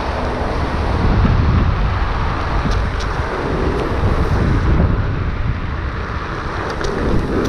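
Wind buffeting the microphone as a rider moves along on a Onewheel XR electric board: a steady low rumble and rush, with a few faint ticks about a third of the way in and near the end.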